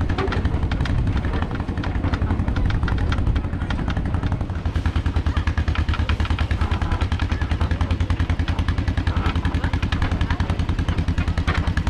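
Farm tractor engine running, a steady low pulsing chug that turns more even about five seconds in.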